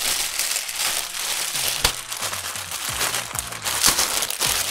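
Thin plastic wrapping bag crinkling and crackling as hands squeeze it and pull it open around a fabric pouch.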